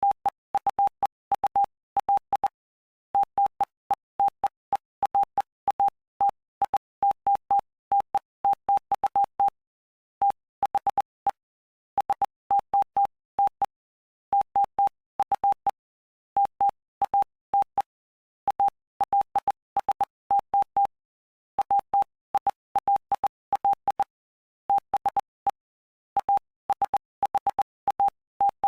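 Morse code: a single tone of about 800 Hz keyed on and off in dots and dashes, with short gaps between letters and longer ones between words, each element starting and stopping with a faint click. It spells out the Bible text of Mark chapter 8.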